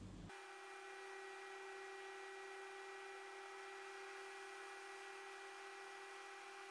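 AMD stock CPU cooler fan running at full speed under full CPU load: a faint, steady hum with a few fixed whining tones that sets in abruptly just after the start.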